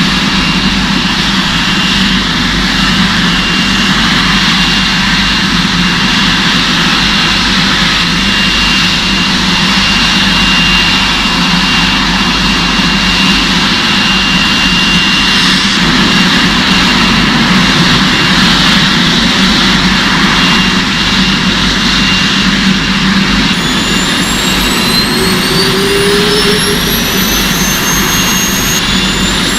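Jet airliner engines running on the ground: a steady roar with a thin high tone. In the last several seconds a whine rises in pitch as the engines spool up.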